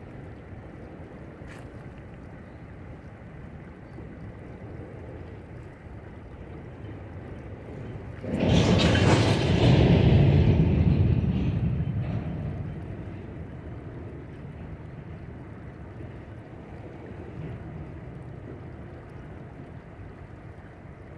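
Freight train of tank cars rolling across a steel truss bridge, a steady low rumble. About eight seconds in a sudden loud rush breaks in, lasts a few seconds and fades away.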